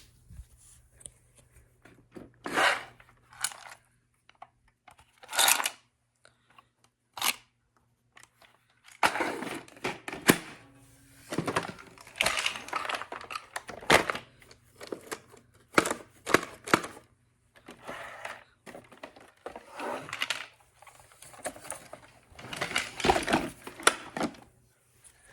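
Hard plastic LEGO bricks clattering and rattling in irregular bursts, some single knocks and some longer rattles lasting about a second.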